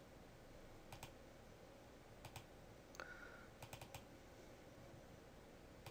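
Faint clicks of a computer mouse: a few single clicks and a quick run of four about two-thirds of the way through.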